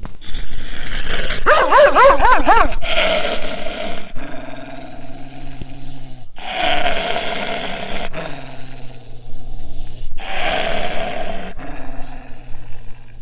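A Gaddi dog (Himalayan sheepdog) growling and snarling in repeated rough bouts, a warning of aggression. A wavering, higher-pitched snarl comes about two seconds in.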